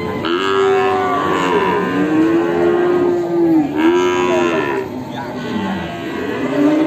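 Cattle mooing: three long calls, the second running straight into the third.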